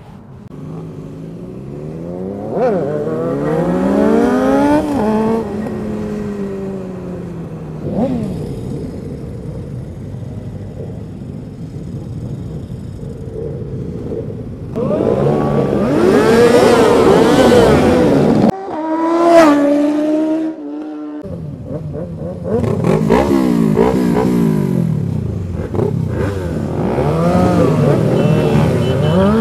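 Motorcycle engines revving and passing, the pitch sweeping up and down again and again, with a short break in the run about two-thirds of the way through.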